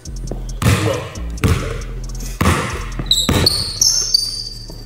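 A basketball dribbled on an indoor hardwood court, bouncing about once a second with a short echo after each bounce. Near the end, sneakers squeak in short high chirps as the players move.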